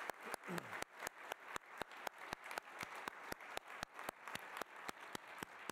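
Audience applauding, with sharp individual claps standing out at a fairly even pace of about six or seven a second.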